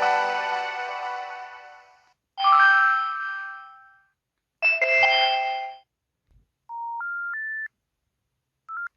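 IM-S640S mobile phone's built-in alert sounds: a ringing multi-note chime fading out, two more short chimes, then three rising electronic beeps and a brief beep near the end.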